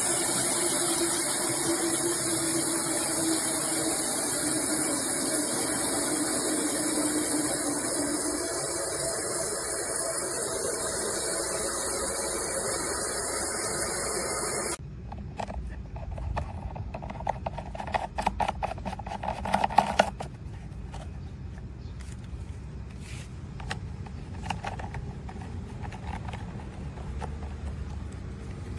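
Portable generator running steadily, with water from the sump pump's discharge hose pouring into a rain barrel; the submersible pump itself is almost silent. About halfway through the sound cuts off abruptly, leaving a quieter low rumble with scattered clicks and knocks.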